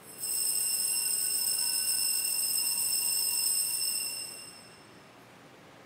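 Altar bells ringing for the elevation of the chalice at the consecration: a steady high ringing of several tones that holds for about four seconds, then fades away.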